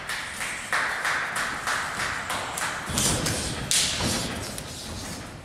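Repeated thuds and taps of wrestlers hitting each other and the ring during a pro wrestling match.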